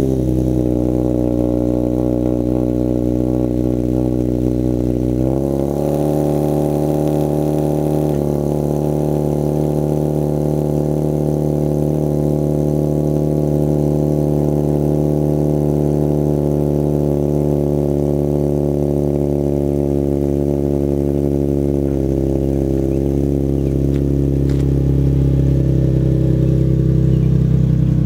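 Car engine just after a cold start, idling with a steady, even exhaust note; the pitch steps up slightly about five seconds in and holds.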